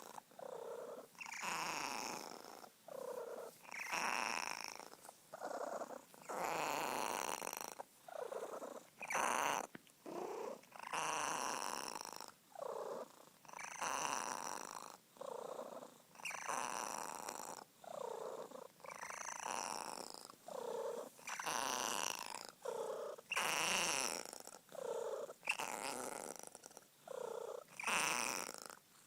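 Sphynx cat making its odd purring noise, a sound it makes when happy, in a regular rhythm of breaths about one every one to two seconds.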